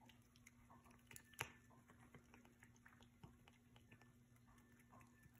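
Faint, near-silent wet clicks and smacks of a kitten licking whipped cream off a finger, with one sharper click about a second and a half in.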